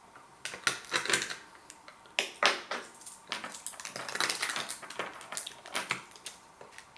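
Plastic sweet chilli dip pot being struggled with to get its sealed lid open: irregular crackling and sharp clicks of thin plastic, in several bursts.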